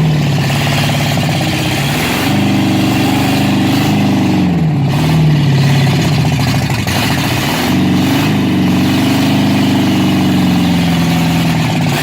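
Newly installed 350 Chevy small-block V8 running on its first start-up, revved up and let back down twice. It will not hold an idle on its own.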